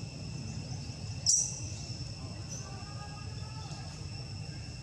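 Steady high drone of insects chirring, with a low rumble beneath. About a second in, one short, sharp high-pitched squeak cuts across it.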